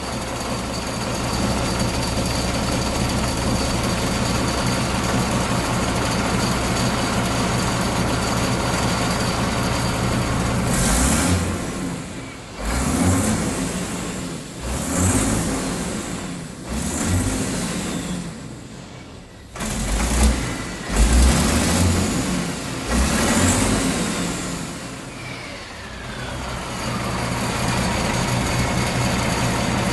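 Rebuilt diesel engine on a test run with its turbocharger not yet connected, idling steadily, then revved up and let fall back about six times from about 11 to 25 seconds in before settling to an even idle.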